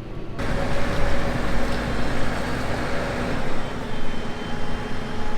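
Tractor engine running under load with dense mechanical noise and a steady hum whose pitch drops about three and a half seconds in.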